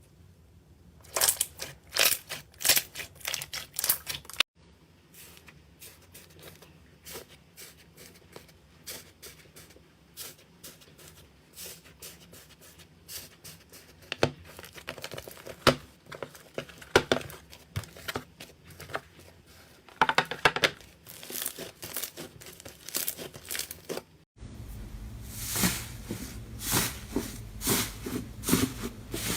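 Slime being squeezed and stretched by hand, giving rapid sticky clicks and pops in uneven runs. The sound changes abruptly twice, about four seconds in and again near the end, where it becomes louder and fuller.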